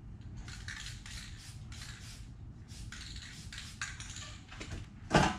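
Aerosol spray-paint can hissing in several short bursts as cut lines are marked on the truck's body metal, followed about five seconds in by one loud sharp knock.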